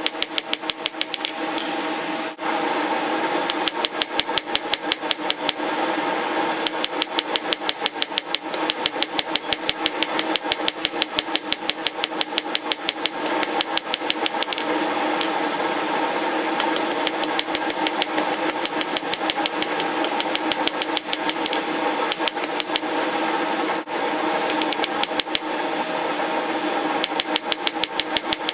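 Hammer striking red-hot steel bar stock on an anvil in fast, even blows, about five a second, in long runs broken by short pauses. A steady ringing tone sounds under the blows.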